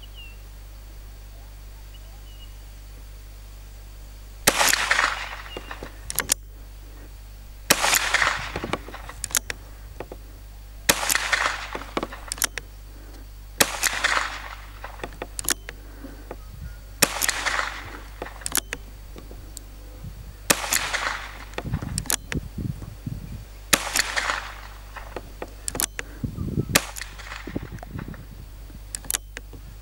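Alfa Carbine .22 LR revolver carbine firing Sellier & Bellot 38-grain hollow points, eight single shots spaced about three seconds apart, each trailing off in an echo.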